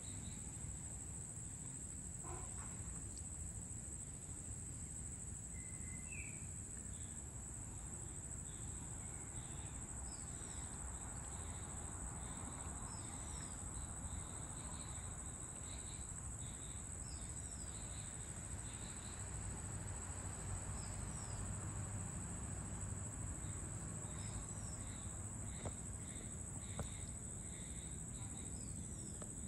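Steady high-pitched insect chorus, a continuous even trill typical of crickets, with a bird's short falling chirps repeated every few seconds over a low background rumble.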